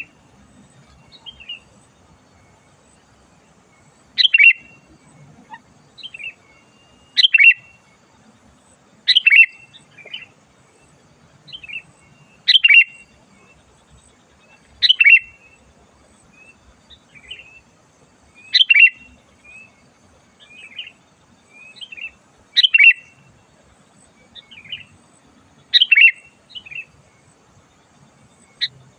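Sooty-headed bulbul (kutilang) singing: short, loud, bright phrases every two to four seconds, with softer notes in between.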